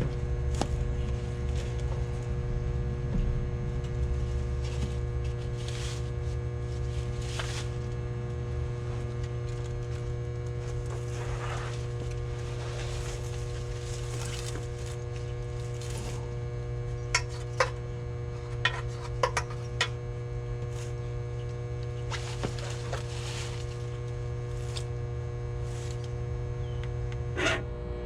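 A steady electrical hum with a few sharp clicks and knocks in the second half. The hum cuts off just before the end.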